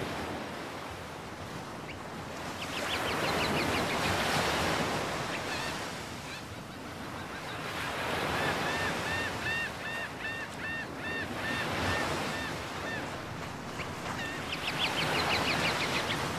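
Gulf surf breaking on a sand beach, swelling and fading in slow waves. Laughing gulls call over it in runs of quick repeated notes: a short run about three seconds in, a longer run of about a dozen notes in the middle, and another near the end.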